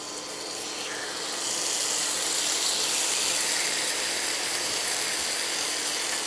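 Tandoori-marinated beef sizzling in hot oil in a frying pan as it is tipped in. The sizzle starts as the meat hits the oil, grows louder about a second in, then holds steady.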